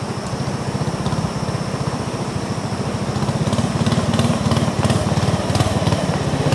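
Long-tail boat engine running with a fast low throb, growing louder as the boat approaches.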